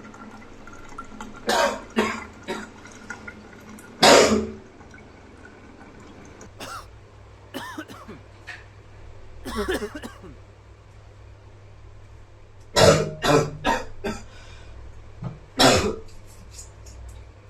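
A man coughing in fits. First three short coughs, then a longer harsh one, then softer throaty sounds, then three coughs in quick succession and one more near the end.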